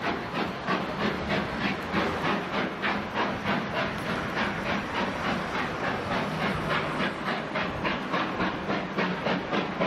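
Steam locomotive's exhaust chuffing in an even rhythm of about four beats a second, over a steady hiss.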